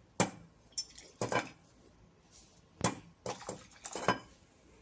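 Kitchenware clinking: several short, sharp clinks and knocks, unevenly spaced.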